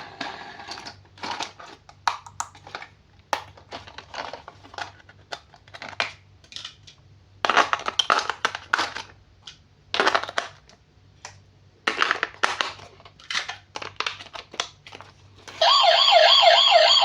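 Plastic packaging crinkling and toy parts clicking as they are handled. About three-quarters of the way in, a toy's electronic siren sound starts loudly with a rapid warble, about four wobbles a second.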